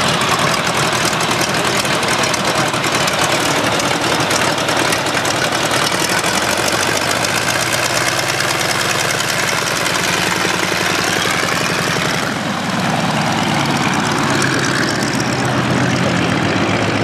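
Boeing-Stearman biplane's radial engine running at idle while the plane taxis, a steady rumble of rapid firing pulses. The sound changes abruptly about twelve seconds in and turns a little quieter.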